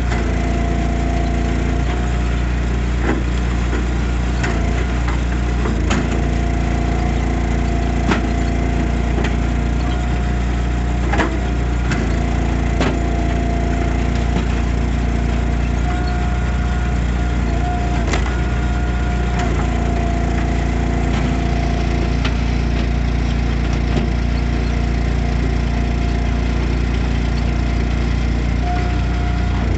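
Easton Made Axis log splitter's engine running steadily under load, its pitch shifting as it works, with sharp cracks of wood splitting every few seconds.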